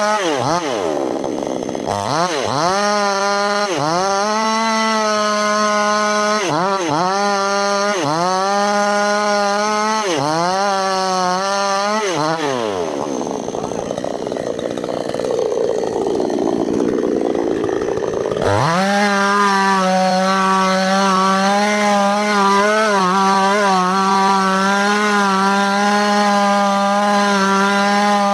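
Two-stroke petrol chainsaw cutting into a large tree trunk, its engine note dropping and recovering every second or two as the chain works through the wood. For about six seconds in the middle it runs slower and rougher, then it holds a steady high note to the end.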